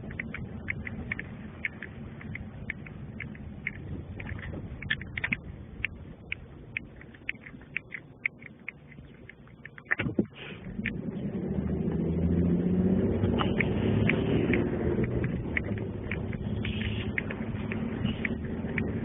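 Scattered crackles and clicks over a low background hum, a sharp knock about ten seconds in, then a motor vehicle's engine rumbling close by, swelling and staying loud through the rest.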